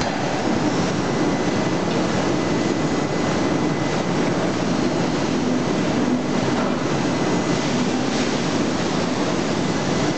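Steady, dense din of a hot-forging shop floor: machinery and furnaces running continuously in a large hall, with no distinct blows.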